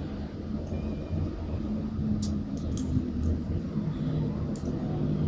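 A steady low hum with a few faint, sharp metallic clicks in the middle, from fishing pliers working a split ring onto a swivel and assist hook.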